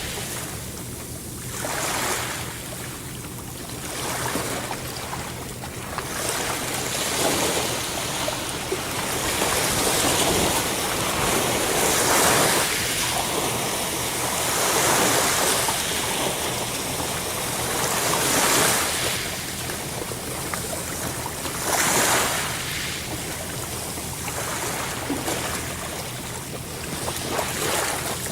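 Sea waves washing in and drawing back, a steady rushing surf that swells and ebbs every few seconds.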